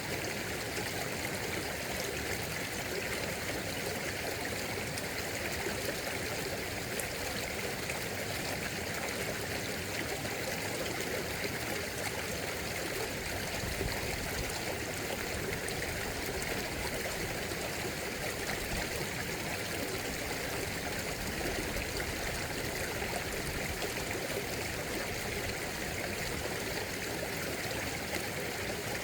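A stream running steadily over rocks, an even rushing and trickling of water.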